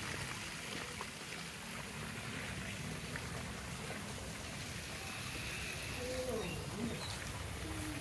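Steady running, trickling water, with a few faint gliding sounds near the end.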